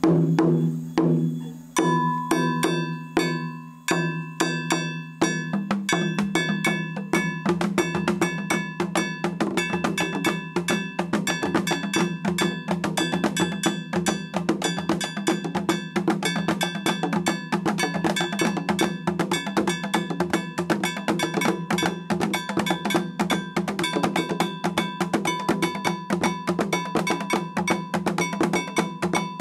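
Traditional drumming with a struck bell accompanying a cultural dance: a few spaced strokes at first, then from about five seconds in a fast, steady rhythm of drums and bell.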